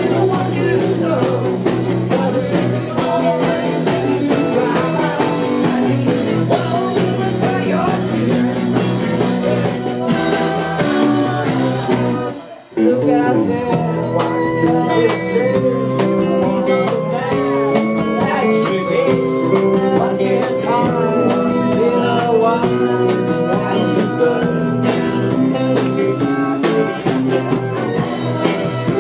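Live 60s-style freakbeat/garage rock band playing: electric guitars, drums and sung vocals. The band stops dead for a moment about twelve seconds in, then comes straight back in.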